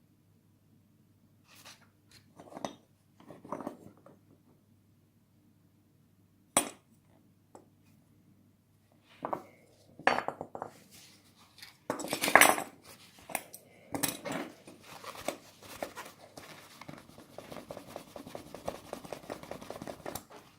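Small metal objects clinking and scraping as they are handled, with sharp clicks at irregular intervals, then a long run of rapid scratching and rubbing in the second half.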